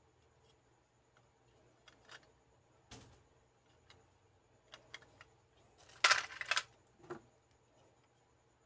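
Hard plastic Kyutama toy capsules clicking and clacking as they are handled, turned over and swapped among others like them. Scattered single clicks come first, then a short run of louder clacks about six seconds in and one more click just after.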